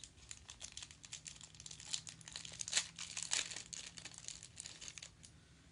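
Small clear plastic jewellery bag crinkling and rustling in the fingers as it is worked open: irregular crackles, busiest in the middle, stopping shortly before the end.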